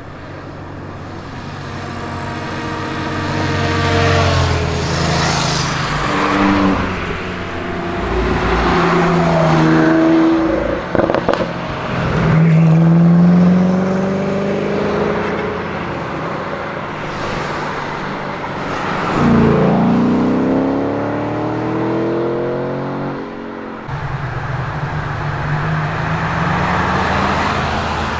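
Koenigsegg Agera RS twin-turbo V8 with titanium exhaust accelerating past among other supercars and motorcycles, revving up several times with a short drop in pitch at each gear change. About three-quarters of the way through, the sound cuts suddenly to a steadier engine drone.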